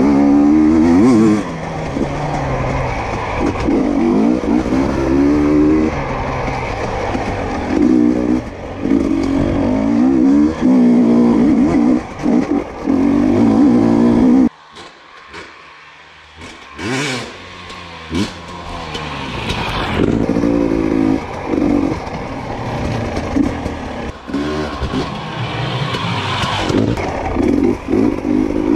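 2022 GASGAS EC250 two-stroke dirt bike engine being ridden hard, revving up and falling back in short bursts with the pitch rising and dropping. About halfway through the engine sound drops away suddenly for a couple of seconds, then builds back up.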